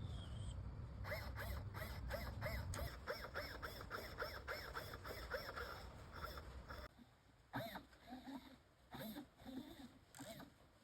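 Small RC servo whirring in quick back-and-forth strokes, several a second, as it swings the pair of outboard motors as a rudder. After about seven seconds it slows to a few separate strokes.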